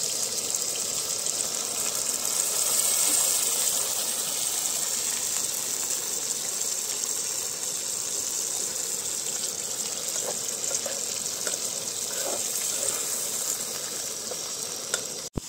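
Water poured into a hot frying pan of oysters, potatoes, tomatoes and onions, which then sizzles and simmers with a steady hiss.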